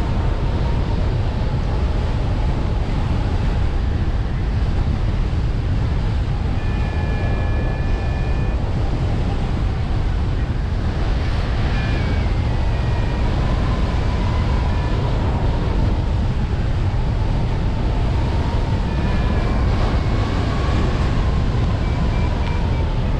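Airflow rushing over the microphone of a hang glider in flight: a loud steady wind noise, heaviest in the low range. A faint thin whistling tone wavers slightly in pitch underneath, and a few short higher tones sound now and then.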